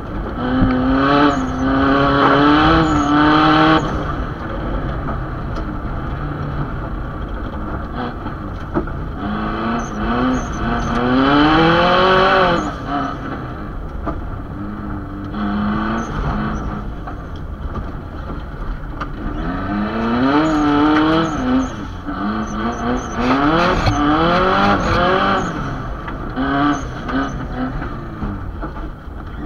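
Subaru Impreza GC's flat-four boxer engine heard from inside the cabin, repeatedly revving up and breaking off through gear changes as the car is driven hard.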